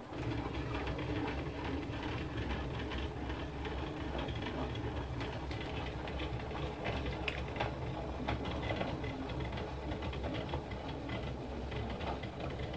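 Small homemade CNC axis driven by a stepper motor under Mach3 control, running steadily with a busy mechanical hum and faint ticking; it starts suddenly.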